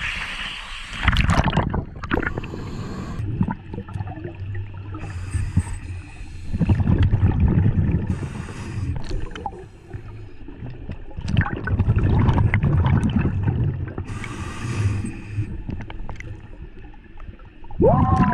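Scuba diver breathing through a regulator underwater: each inhale is a short hiss and each exhale a long rush of bubbles, about three slow breaths. Near the end a short squealing tone rises and falls.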